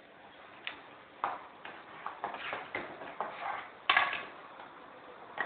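Light clinks and ticks of a spoon against a saucepan as the orange sauce is stirred, irregular and about every half second, the strongest about four seconds in.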